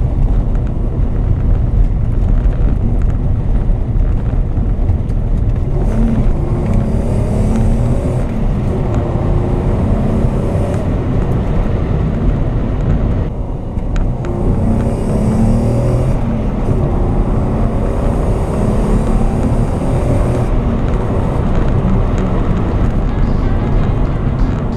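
Mk2 Volkswagen Golf's swapped-in 24-valve 2.8 VR6 engine being driven, its pitch rising and falling with the revs, with a brief lull about halfway through.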